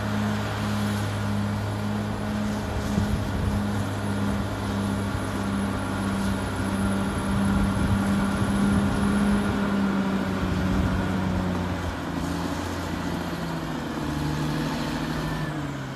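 Caterpillar D6R XL crawler dozer's diesel engine running steadily under load as its blade pushes a pile of wet soil; its pitch steps down a little about twelve seconds in.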